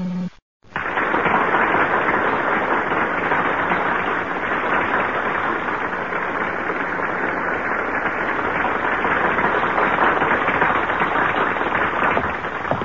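Steady noise of a large crowd, starting after a brief silent gap.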